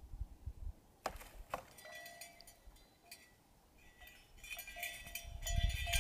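A wooden door clicks open, two sharp clicks about a second in, then bells jingle and ring repeatedly. Low thumping builds near the end.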